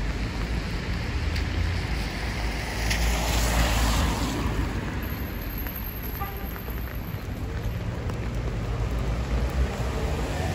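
Rainy street ambience: traffic going by on the wet road, one vehicle swelling past about three seconds in, over a steady hiss of rain and a low wind rumble.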